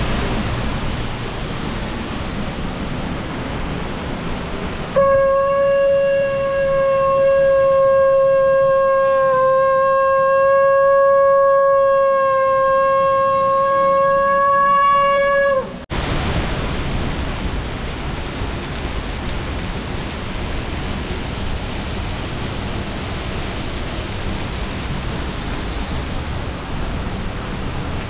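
One long, steady, whistle-like note blown into cupped hands, held for about eleven seconds from about five seconds in and sagging in pitch as it ends. Before and after it, a steady rushing noise.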